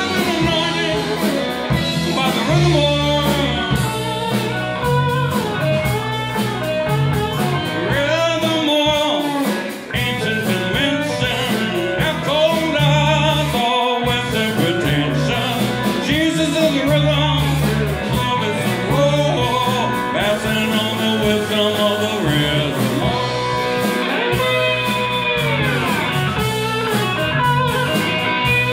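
A live blues-funk band plays an instrumental passage. An electric slide guitar leads with gliding, bending notes over electric bass, drum kit and keyboards.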